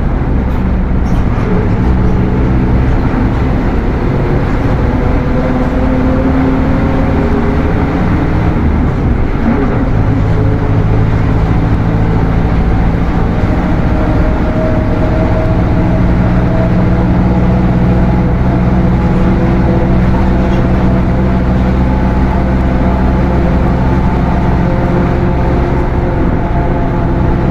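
Mercedes-Benz OF 1721 bus's diesel engine and transmission running under way, with the transmission growling loudly. The engine note changes about ten seconds in, then rises slowly.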